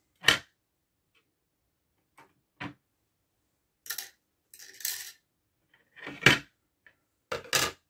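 3D-printed PLA plastic road sections and railings clacking and scraping as they are lifted off a model bridge and set down, about eight hard knocks with short slides between them, the loudest just after the start and about six seconds in.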